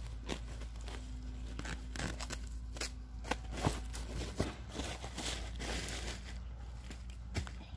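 Scissors snipping and woven plastic weed-barrier fabric crinkling as it is cut and handled around a seedling: a run of irregular sharp clicks and crackles, the loudest about three and a half seconds in.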